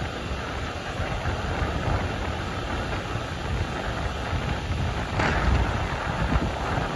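Wind buffeting the microphone: a steady, uneven rumbling hiss, with a brief louder rush about five seconds in.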